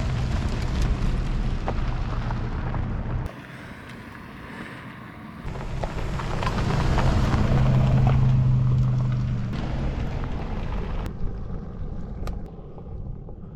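A vehicle engine running with a steady low drone, mixed with wind rumble on the microphone, in a few short clips cut together: the sound drops abruptly about three seconds in, returns louder a couple of seconds later, and drops again near the end.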